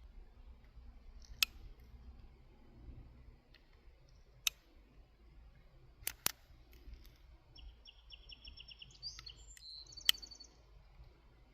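Several sharp, isolated clicks, one at a time with a close pair in the middle, over a quiet background; from about two-thirds of the way in, a bird chirps in quick high trills.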